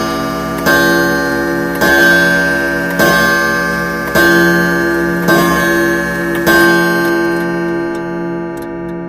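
Countdown-timer sound effect: a ringing pitched tone re-struck about once a second, six times, then left to fade over the last couple of seconds.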